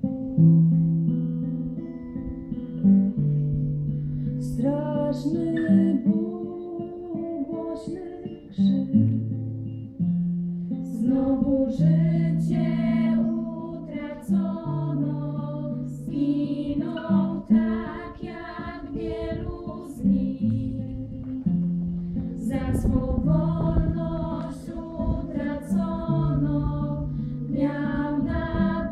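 A group of young women singing a song together to an acoustic guitar accompaniment. The guitar plays alone at first, and the voices come in about four seconds in, singing in phrases with short breaks.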